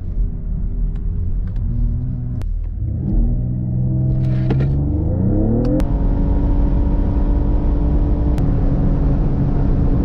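Mercedes-AMG GLE 53's 3.0-litre inline-six accelerating hard, heard from inside the cabin: the engine note climbs steadily through the revs, then holds level from about halfway on under a strong rush of wind and road noise at high Autobahn speed.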